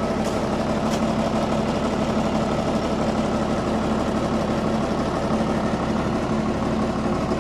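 Large heavy-machinery engine idling steadily, an even hum that does not change.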